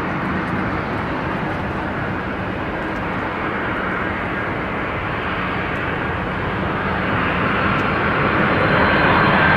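Boeing 767-300ER twin-jet airliner landing: steady jet engine noise and rushing air, growing louder toward the end as a thin high whine comes in.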